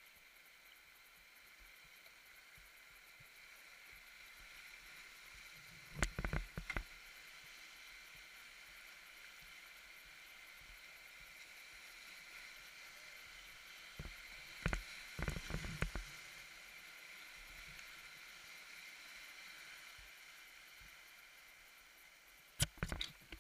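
Whitewater rapids rushing steadily, heard from a kayak running through them, with three clusters of loud splashes and knocks against the boat about six seconds in, around the middle, and near the end.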